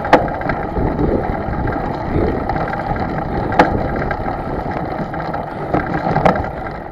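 Steady rushing noise of wind and water, with three sharp knocks: one just after the start, one in the middle and one near the end.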